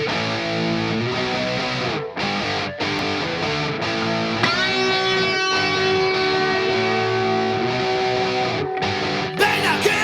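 Distorted electric guitars playing an intro of held chords and notes, a long sustained note from about 4.5 s, with the full band coming in near the end.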